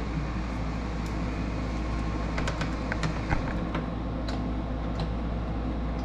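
Steady low room hum from a running machine, with a few light, scattered clicks and taps from small screws and parts being handled at the car's plastic grille.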